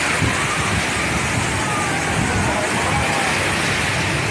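Formation of military aircraft flying over: a steady jet roar with a faint whine that slides in pitch.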